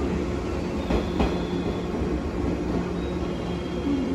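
Yellow electric commuter train at a station platform, a steady mechanical hum with a few sharp clicks about a second in.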